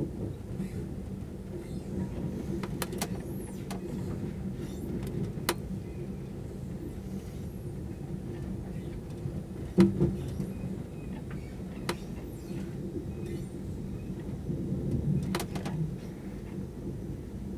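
Night Riviera sleeper train running: a steady low rumble with a few sharp clicks and knocks. The loudest knock comes about ten seconds in.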